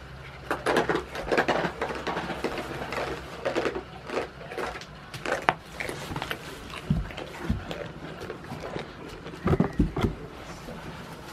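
Goats shuffling and nosing about in dry straw at close range: irregular rustling crackles and clicks. Near the end come a few dull low thumps as a goat's body brushes against the microphone.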